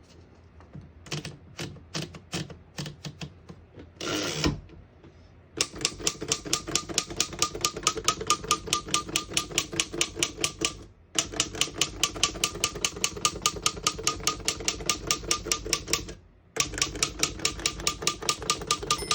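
Keys striking on a 1911 Smith Premier Model 10 typewriter: a few scattered strokes and a short rasp, then long runs of rapid, even keystrokes broken by two brief pauses.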